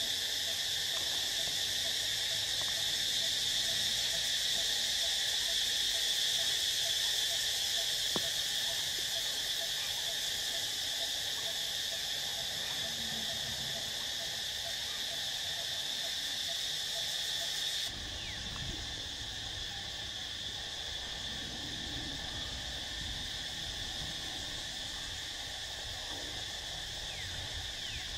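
Dense insect chorus, a steady high-pitched shrill, with a faint row of rapid low pulses beneath it for the first two-thirds. It then cuts off abruptly to a thinner chorus over a low rumble.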